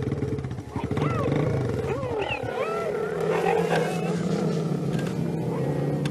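Cheetahs calling: several short high chirps that rise and fall in pitch, scattered through the middle, over a steady low hum.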